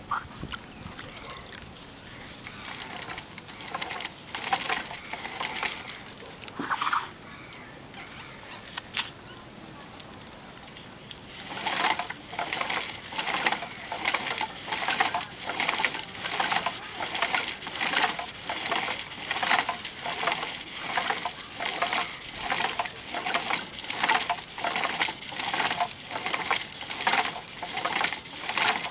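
Lacquered vessel being sanded by hand as it turns on a cord-driven wooden lathe: a hissy rubbing stroke nearly twice a second, starting about a third of the way in. Before that, only quieter, scattered rubbing and handling sounds.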